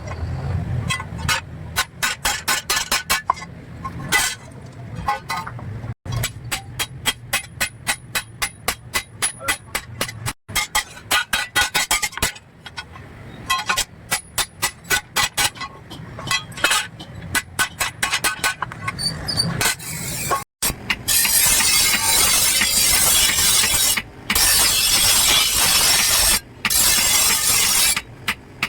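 Rapid sharp metallic clinks, several a second, from metal striking the steel chaff cutter blade, broken by a few abrupt cuts. Near the end, about seven seconds of steady grinding hiss as the blade is ground.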